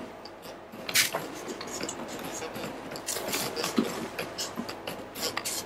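Sponge-cake batter being poured and scraped out of a stainless-steel mixing bowl into a cake tin: irregular scraping and rubbing against the metal bowl, with a light clink about a second in and busier scraping in the second half.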